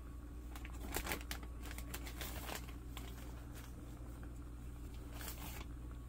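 Sauce simmering in a cast-iron skillet: irregular small bubbling pops and crackles, thicker in a few short clusters, over a steady low hum.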